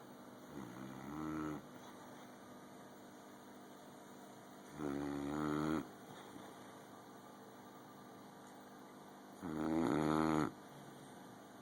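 Boxer dog snoring in her sleep: three pitched snores about a second long each, roughly four to five seconds apart, each louder than the last.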